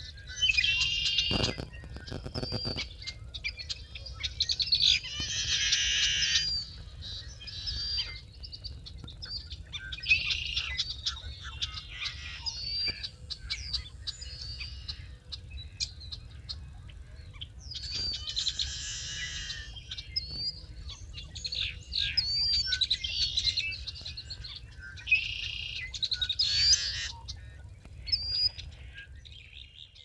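Marsh birds at dawn picked up by a parabolic dish microphone: many overlapping songs, chirps and calls, with several buzzy trills about a second long, over a steady low rumble. A few sharp clicks sound about two seconds in, and everything fades out at the end.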